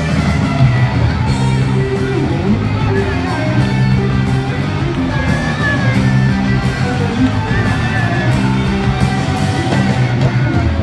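Rock band playing live in an arena, with electric guitars and vocals over a full band, crowd noise mixed in, picked up from the audience on a phone's microphone.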